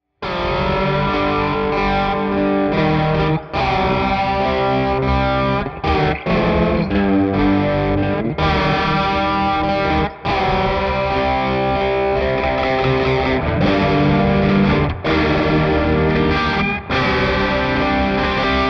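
Electric guitar played through an EarthQuaker Devices Aqueduct vibrato pedal: chords and single notes that warble in pitch, some of them swooping down and back up.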